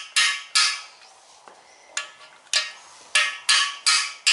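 Hammer striking a socket held against a freeze plug, driving the plug into an engine block: sharp metallic clinks, each ringing briefly. Two strikes come first, then a pause of over a second, then about five more at roughly half-second intervals, tapping the bottom edge in so the plug seats evenly.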